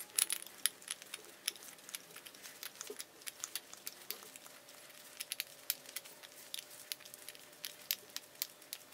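Hand bead-rolling pliers squeezed and walked around the end of a 2-inch aluminium pipe, forming a bead: faint, irregular sharp clicks, a few a second.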